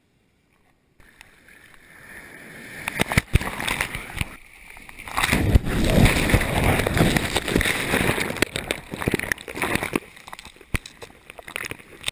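Water sloshing and rushing over an action camera's housing, with knocks and splashes against the microphone. It builds up over a few seconds, is loudest in the middle, and then thins out into scattered knocks.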